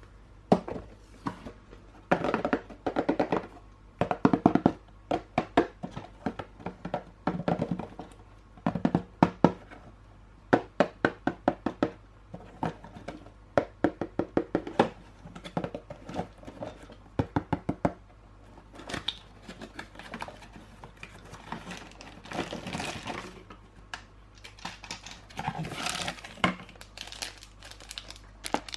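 Plastic toys and packaging being handled: runs of sharp clicks and knocks with crinkling, in irregular bursts.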